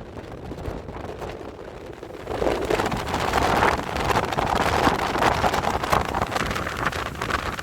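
Strong gusty wind buffeting a phone's microphone, swelling into a louder gust about two seconds in and staying loud.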